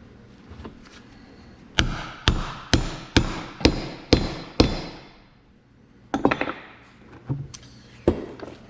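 Hammer striking metal, driving a seal into the end of a tractor axle assembly: seven sharp blows at about two a second, then a pause and a few more scattered blows.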